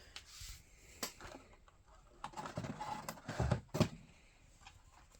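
Carded Hot Wheels die-cast cars being handled: rustling of plastic blisters and cardboard with scattered clicks and taps, loudest about three and a half seconds in.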